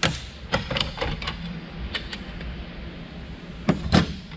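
Scattered plastic and metal clicks and knocks as cooling fans are worked loose and pulled out of a rack server's metal chassis, with two louder knocks near the end.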